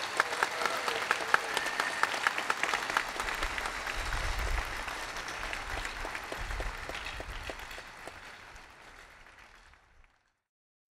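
Large crowd applauding, a dense patter of many hands clapping that dies away over the last few seconds and cuts off about ten seconds in.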